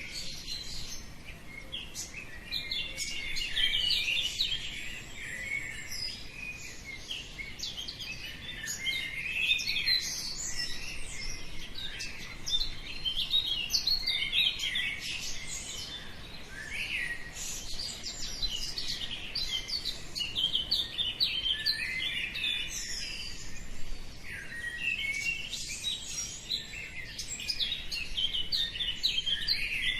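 Many birds chirping and singing at once, a dense dawn chorus of quick, high, overlapping calls without a break.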